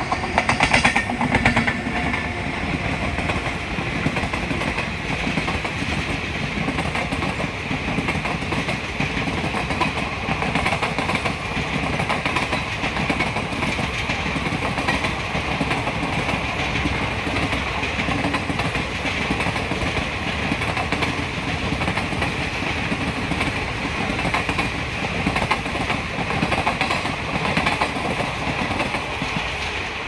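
Passenger train passing at speed behind a WAP-7 electric locomotive, its coaches rolling by in a steady rumble with wheels clattering over the rails. It is loudest for the first couple of seconds as the locomotive goes by.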